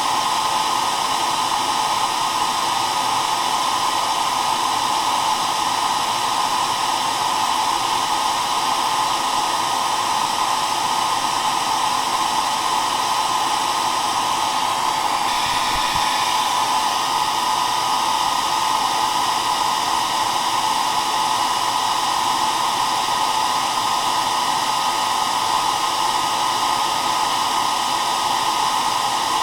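Hair dryer blowing steadily, an even whooshing hiss with a faint whine above it.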